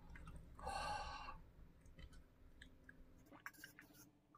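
A man's breathy sigh through the mouth about a second in, then faint mouth clicks and a short sip from a glass near the end.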